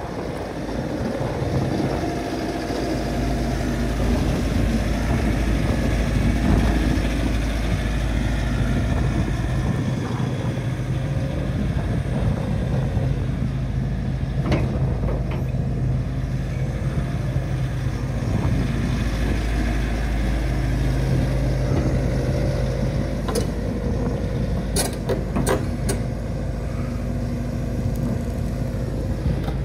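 Hitachi ZX130-7 LCN tracked excavator's diesel engine running steadily as the machine is worked, growing louder over the first few seconds. A few sharp metallic clanks come near the middle and again toward the end.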